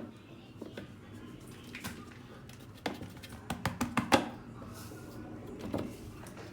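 Flour being tipped into a mixing bowl, with a quick cluster of sharp taps and knocks of a container or utensil against the bowl about three and a half to four seconds in, and single knocks near three and six seconds.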